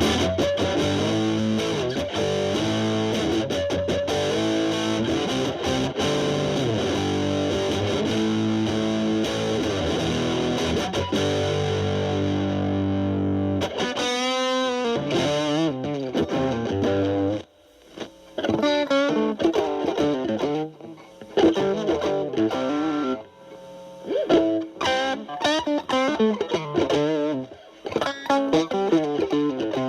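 Fender Stratocaster through a Boss DS-2 Turbo Distortion pedal (turbo mode off, distortion near 3) into a Marshall Valvestate amp's clean channel, playing sustained distorted chords. About 14 seconds in there is a wavering held note. After a brief stop, about two-thirds of the way through, the tone cleans up into lighter picked notes and chords.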